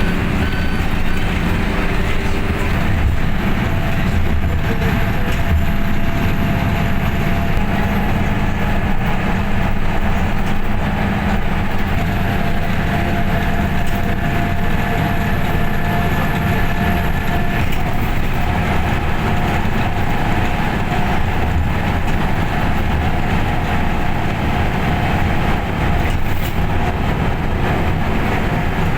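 Truck driving: a steady rumble of engine and road noise.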